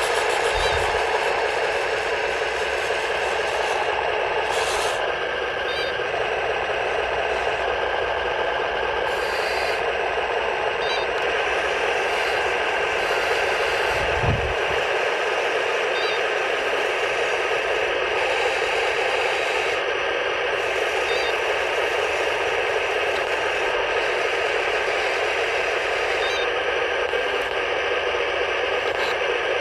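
1:16 scale radio-controlled tank model running: a steady, tinny mechanical noise from its drive and sound unit, with a single low thump about halfway through.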